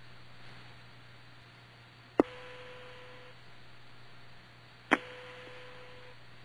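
Mission Control voice-loop audio with nobody talking: a steady hum under hiss, broken twice by a sharp keying click followed by a short steady beep about a second long, the two clicks about two and a half seconds apart.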